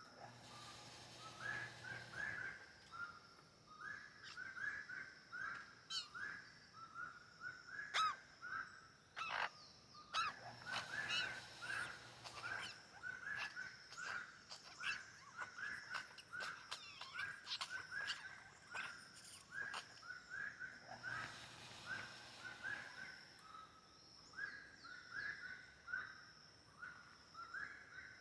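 A bird repeating a short chirping call about twice a second without a break, over a faint steady high insect hum. Bursts of rustling and crunching on the forest floor come near the start, in the middle and again later.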